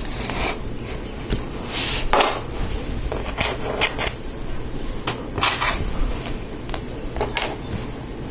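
Plastic Lego Technic parts clicking and clattering as they are handled, fitted together and picked out of a loose pile on the table: irregular light clicks over a steady low hum.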